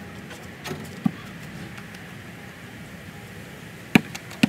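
A basketball bouncing twice on pavement near the end, two sharp bounces about half a second apart, over a steady outdoor background hum. There are a couple of fainter knocks about a second in.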